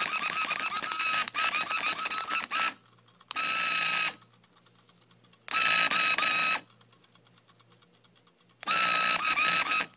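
Small electric motor of a cheap toy RC car whining in on-off bursts of one to three seconds, cutting out to silence in between. It is misbehaving after being run at full throttle: the car just moves back and forth, and the owner thinks he has broken it.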